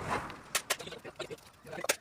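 A handful of sharp taps or clicks at uneven intervals, the loudest near the end, from work on a wooden sofa frame.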